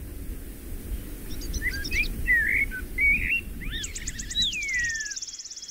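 Bird calls over a steady low background rumble: a scatter of short chirps and whistles, one long falling whistle, then a fast, high, evenly pulsed trill through the last two seconds.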